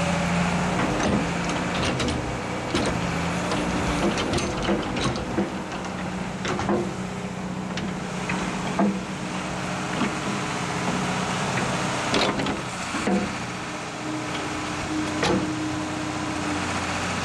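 Engine running steadily at idle, with repeated sharp knocks and clanks over it and a higher steady tone near the end.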